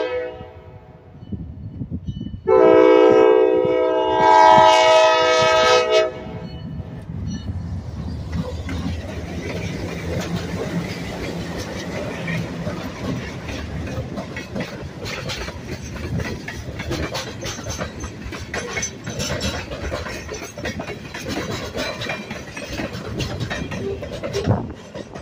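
Diesel freight locomotive's multi-note horn: one blast cuts off at the very start and a second long blast sounds from about 2.5 to 6 seconds in. Then the locomotive's diesel engine rumbles past, followed by the steady noise of freight cars rolling by with their wheels clicking over the rail joints.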